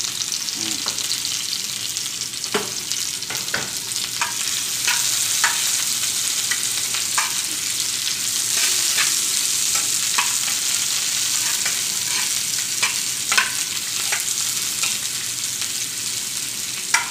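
Sliced onions, garlic and ginger sizzling in hot oil in a frying pan, with a steady hiss, while a spatula stirs them, scraping and clicking against the pan at irregular moments.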